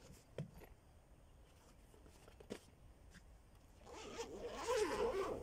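Zipper of a padded fabric carry case being pulled open: a rasping run lasting about a second and a half near the end, after a couple of light handling knocks.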